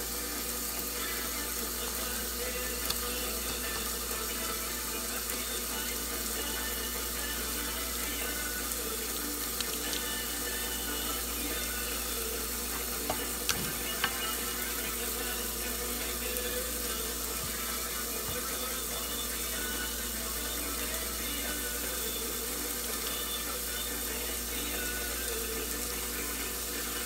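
Ground bison burger patty sizzling in a George Foreman contact grill: a steady hiss, with a few faint clicks around the middle.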